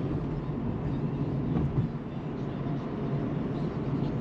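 Car driving along, with steady engine and road noise.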